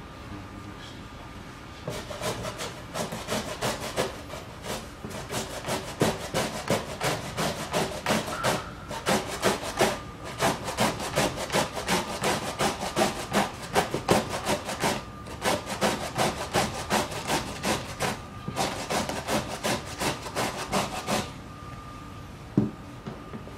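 Cucumber being shredded on a plastic mandoline slicer-grater with stainless steel blades: quick rasping strokes, a few a second, with brief pauses. The strokes start about two seconds in and stop about two seconds before the end, followed by a single knock.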